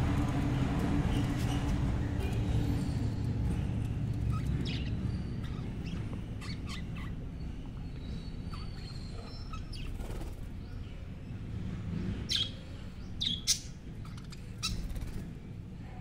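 Budgerigars giving short, scattered chirps, with a few louder ones near the end. Under them a low rumble fades away over the first half.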